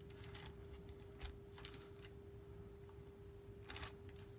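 Faint, scattered rustles and light scrapes of a steam iron sliding over non-stick paper, pressing fused fabric pieces down, over a steady faint hum.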